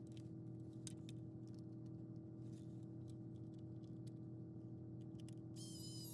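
Faint scattered clicks and taps of small plastic toy parts being handled over a steady low electrical hum. Near the end a high-pitched whirring tone with many overtones starts, its pitch sagging slightly.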